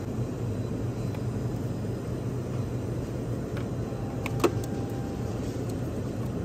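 Steady low hum and hiss of a refrigerated drinks cooler, with one sharp plastic click about four and a half seconds in as a plastic coffee cup is taken off the shelf.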